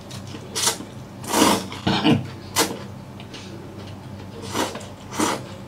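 A person slurping noodles off chopsticks: about six short, sharp slurps, four in quick succession, then a pause, then two more near the end.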